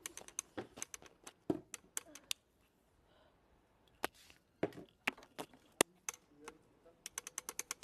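Small tiles clicking and tapping as they are handled at a clear plastic box: irregular sharp clicks with a pause about two and a half seconds in, then a quick run of them near the end.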